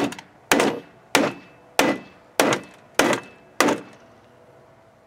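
Claw hammer striking a plywood board and the metal fitting set in it: about seven even blows, roughly two-thirds of a second apart, each with a short ring.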